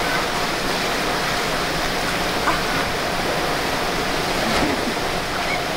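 Water rushing steadily through the runout trough at the bottom of a water slide.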